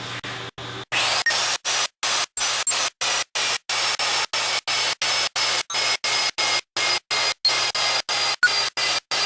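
AGP 35mm low-profile 1100 W magnetic drill running with an annular cutter, getting louder and harsher about a second in as the cutter bites into steel. The sound is broken by regular dropouts three to four times a second.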